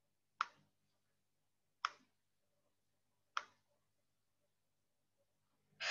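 Three sharp computer mouse clicks, evenly spaced about a second and a half apart.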